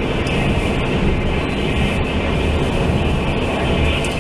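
Interior running noise of a Taiwan Railway Fu-Hsing express passenger coach travelling at speed: a steady, loud rumble of wheels on rail, with no distinct rail-joint clicks.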